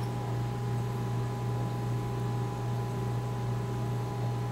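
Steady low electrical hum with two faint, steady higher tones and a light hiss, with no distinct events: an appliance or electrical room tone.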